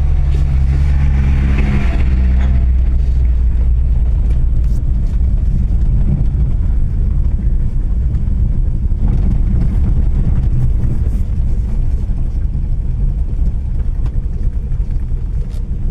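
Low vehicle rumble as a car is driven slowly over a rough road, with a few faint knocks. In the first two seconds a passing tractor's engine drones loudest.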